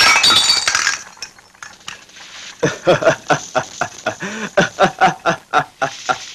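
A glass bottle or glass smashing with a sudden crash and ringing clinks. Then a run of short, rhythmic vocal bursts about four a second.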